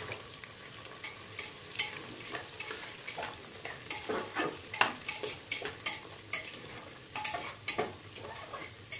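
Onions and garlic frying in hot oil in an aluminium pressure cooker, a steady sizzle, while a metal ladle stirs them, scraping and clinking against the pot many times at an irregular pace.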